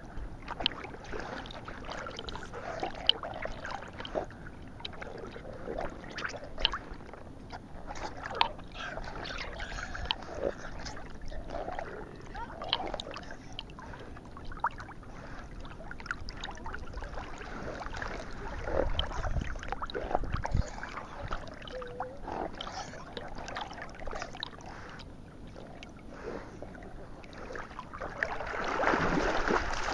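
Water splashing and sloshing close around a dog's harness-mounted camera as the dog swims, with many irregular sharp splashes and knocks and a louder rush of water near the end.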